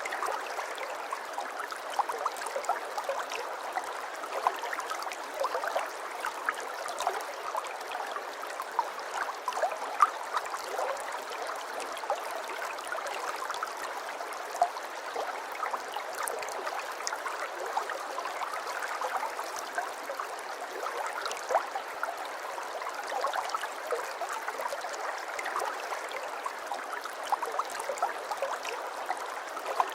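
River water flowing steadily over stones, a continuous burble with many small splashes and gurgles.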